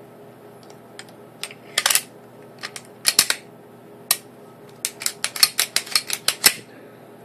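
Sharp metallic clicks and clacks of a Beretta 92FS pistol's recoil spring and slide being fitted back onto the frame and worked by hand. The clicks are scattered at first, then come in a quick run of about a dozen in under two seconds near the end.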